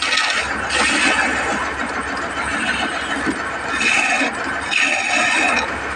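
Hand-held chisel cutting into a long wooden workpiece spinning on a wood lathe: a rough, continuous shaving noise in uneven passes with short breaks, over the steady hum of the lathe's motor.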